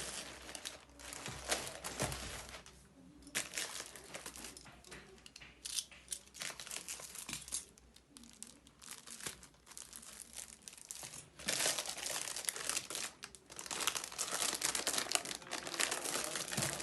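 Plastic packaging being handled and crinkled in stretches of rustling, with quieter pauses between them.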